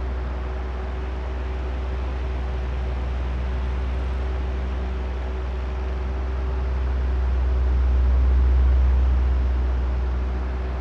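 Electric oscillating fan running: a steady deep drone with a faint motor hum, growing louder and then softer again as the fan head turns back and forth, loudest about three quarters of the way through.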